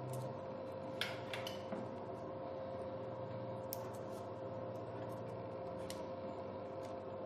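A few light, sharp clicks and ticks of wires being fitted into a small plug-in screw terminal block, over a steady background hum with a constant tone. Three clicks come close together about a second in, and two single clicks follow later.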